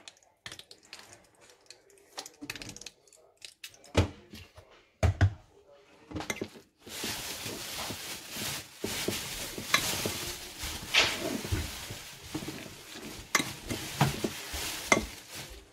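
Fork stirring a moist chicken salad in a ceramic dish, with scattered clicks at first and two louder knocks about four and five seconds in. About halfway through it turns to steady mixing, the fork squishing through the food and clicking and scraping against the dish.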